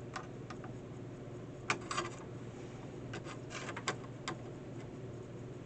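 Scattered light clicks and taps of small hand tools handled against a fence charger's circuit board while a thermal fuse is being unsoldered, over a low steady hum.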